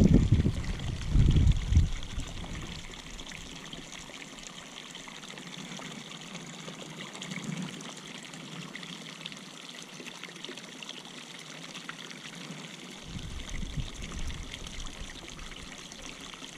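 Water pouring steadily from a pipe outlet into a pond. Low thumps in the first two seconds and again about thirteen seconds in.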